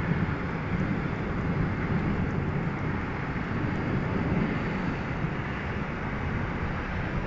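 Rain falling at night, a steady rushing noise heaviest in the low range.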